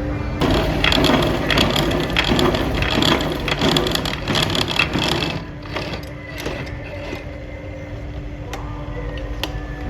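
Metalworking machinery in a forging shop, rattling and clanking with many quick metal knocks for the first five seconds or so. It then thins to a steady low hum with occasional single metallic clinks.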